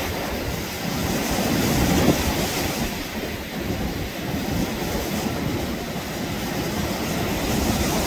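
Ocean surf washing onto a sandy beach: a steady rushing noise that swells to its loudest about two seconds in.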